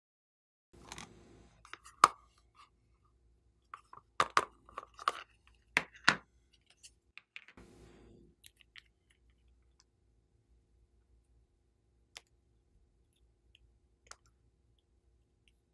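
Sharp clicks and taps of a small cosmetic bottle and its cap being handled and opened, most of them in a cluster over the first six seconds, then a few faint ticks.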